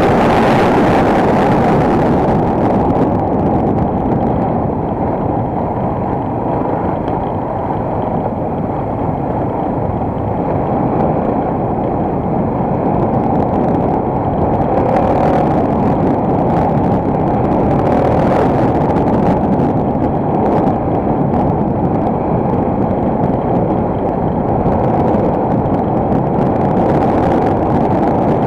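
Enduro motorcycle engine running under way, with a steady muffled drone, mixed with wind rushing over the camera microphone.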